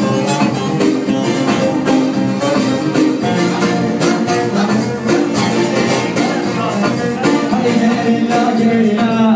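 Loud dance music with a steady beat and sustained melodic instruments playing continuously.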